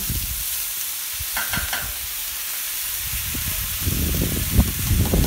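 Pork, white onions and diced green chilies sizzling on a hot flat-top griddle, a steady hiss. Low thumps come in over the last couple of seconds.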